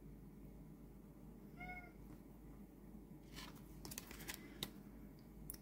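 A cat gives one short, faint meow a little under two seconds in. Then tarot cards are slid and set down on a tabletop, a run of soft rustles and clicks from about three and a half seconds in, ending in one sharper click.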